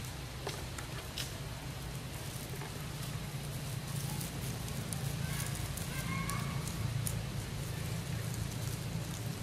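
Outdoor background noise: a steady low hum with scattered faint clicks and crackles, and a few faint short tones about six seconds in.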